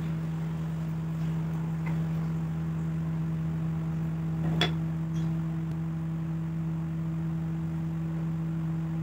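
A steady low hum, with one sharp click about halfway through as the hand planer and its blade are handled.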